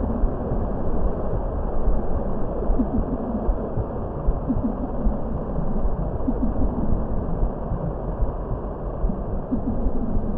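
Steady, deep rumbling ambient drone of a relaxation sound track, with faint wavering tones drifting through it.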